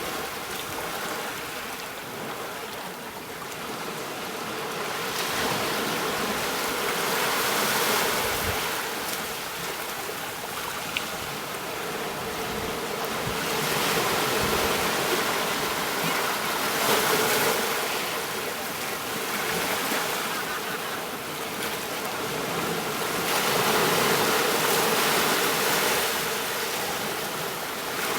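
Gentle sea waves washing onto a beach, the surf swelling and easing every few seconds in a steady wash. A single small click sounds about eleven seconds in.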